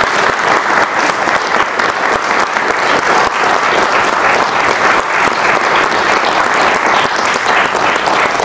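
An audience applauding: many people clapping steadily, a dense even patter.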